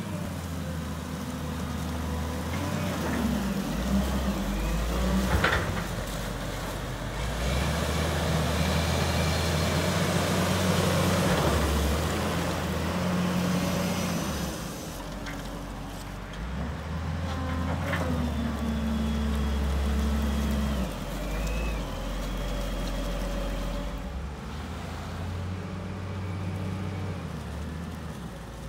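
CAT 930G wheel loader's diesel engine running, its revs rising and falling as the machine drives, turns and raises its bucket. Two brief sharp noises stand out, about five seconds in and again about eighteen seconds in.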